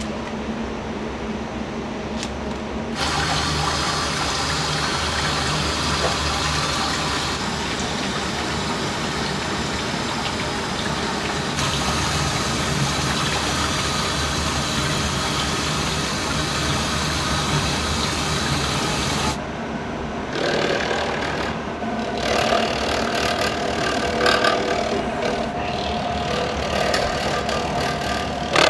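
Water running steadily in a commercial kitchen, over the low hum of kitchen machinery; the flow grows louder about three seconds in. In the last several seconds, short clinks and knocks of utensils come over it.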